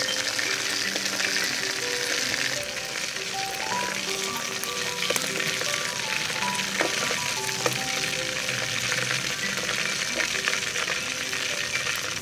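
Marinated chicken drumsticks frying in oil in a wok: a steady sizzle with many small pops. Background music of short stepping notes plays under it.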